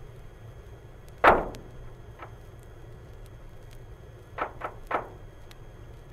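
Seismometer recording of a local California earthquake sped up 750 times so the ground shocks become audible. A loud sharp crack with a short dying rumble comes about a second in, then a faint click, then three quick cracks close together near the end as the aftershocks arrive, all over a steady hiss and rumble.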